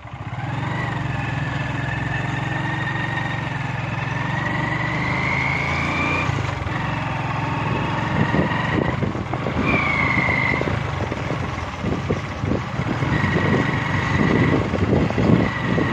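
Motorcycle engine running steadily while riding along a road, with a high whine that rises and falls. From about halfway, wind buffets the microphone.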